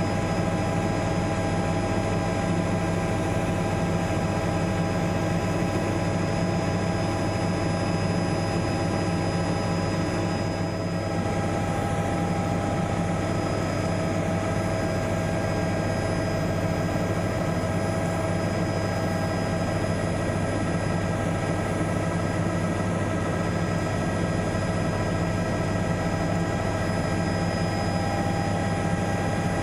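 Helicopter engine and rotor noise heard from inside the cabin in flight: a steady drone with a constant high whine over it, dipping slightly about eleven seconds in.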